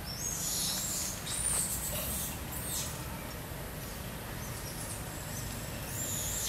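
A few short, very high-pitched squeaky animal calls, each rising and falling in pitch, scattered through a few seconds.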